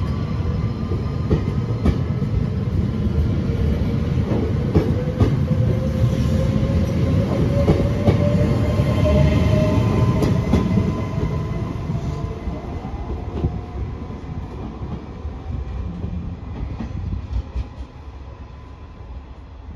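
Trenitalia ETR 104 'Pop' electric multiple unit pulling away: a rumble with the whine of its traction motors rising slowly in pitch as it gathers speed, and sharp wheel clicks over the track. The sound is loudest about halfway in, then fades as the train draws away.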